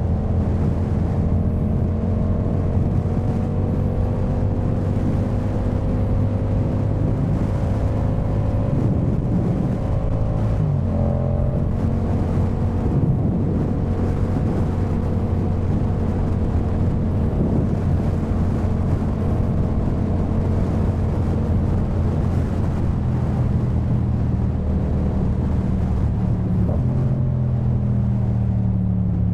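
Yamaha MT-07's 689 cc parallel-twin engine running through a Jeskap K4 full aftermarket exhaust while riding at a steady cruise. The engine note creeps up slowly, changes pitch abruptly about ten seconds in, and falls away near the end as the bike slows.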